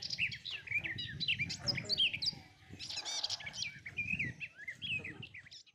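Several small birds chirping, many quick overlapping calls over a low background rumble, cutting off suddenly near the end.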